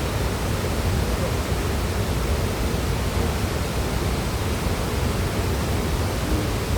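Waterfall, its falling water making a steady, unbroken rushing noise, heaviest in the low end.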